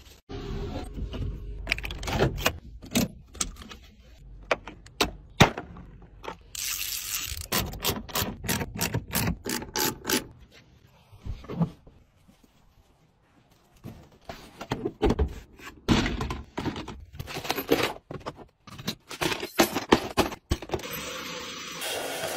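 Irregular scrubbing and scraping strokes with knocks from brushes and tools cleaning a car's interior. There is a quiet stretch about halfway through.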